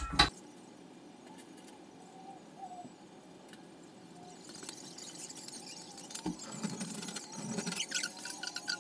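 Faint clicks and clinks of handling in a small bathroom, with a dull knock about six seconds in and a quick series of short, high squeaks near the end.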